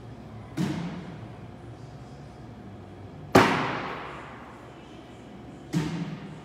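Cornhole bags thudding onto a wooden cornhole board, three hits about two and a half seconds apart, each a sharp thud that dies away over a second or so; the middle hit is the loudest and rings longest.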